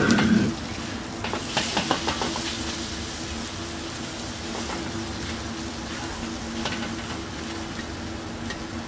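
Diced beef sizzling in a steel wok over a high flame while a metal wok ladle stirs it, clicking against the pan a few times between one and two and a half seconds in. A louder rush stops about half a second in.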